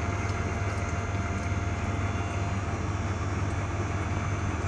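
Milk vending machine running with a steady mechanical hum and a thin constant whine.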